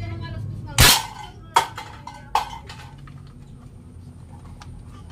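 Homemade PVC toy gun firing: three sharp bangs about three-quarters of a second apart, the first one the loudest, the last two followed by a short ring.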